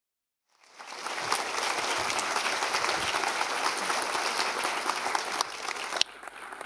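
Audience applauding; it sets in about half a second in, holds steady, and drops away sharply to a thinner patter near the end.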